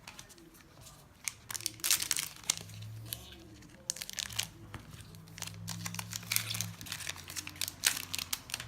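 Crinkly foil booster-pack wrapper being torn open and crumpled by hand, a run of sharp irregular crackles.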